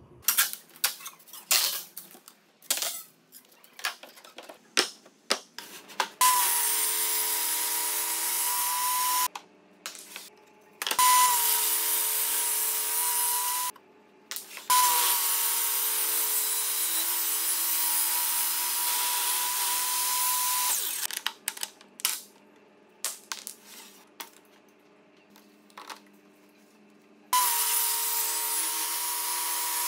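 A quick run of sharp wooden knocks, then a table saw running and cutting mahogany in four stretches, its motor whine rising briefly at the start of each and then holding one steady pitch, with a few knocks in between.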